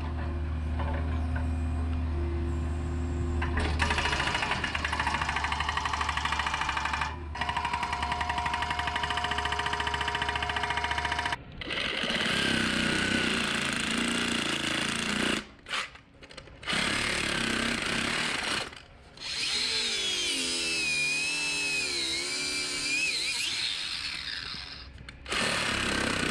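A compact excavator's engine runs steadily for the first dozen seconds. Then a cordless reciprocating saw cuts through a thick, hard rubber barn mat that has metal in it, in several runs with short stops, its pitch wavering as the blade bogs down in the tough rubber.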